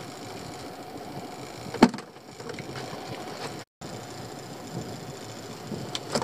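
Steady hum around a small open fishing boat at sea, with one sharp knock just under two seconds in; the sound cuts out completely for a moment past halfway.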